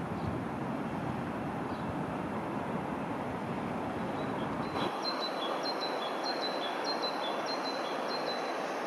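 Wind rumbling on the microphone, with a songbird chirping. About five seconds in, this gives way to a steady hiss of road traffic, with a small bird repeating a falling two-note chirp about twice a second.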